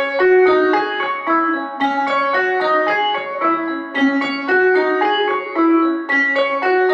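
Background piano music: a continuous run of struck notes, one after another, with no speech.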